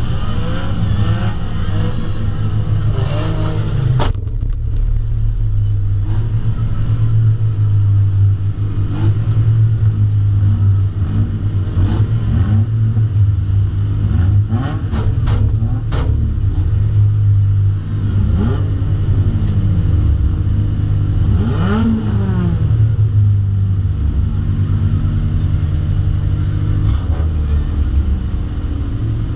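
Derby race car's engine heard from inside the cabin, running hard and revving up and down as it is driven. Several sharp knocks or bangs cut through, a cluster of them about halfway through and more later.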